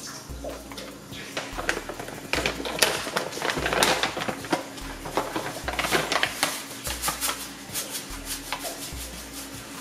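Plastic chia-seed pouch crinkling and rustling as it is handled and tipped over a blender jar, in a run of quick sharp crackles that is densest a few seconds in. Background music with a deep bass line plays under it.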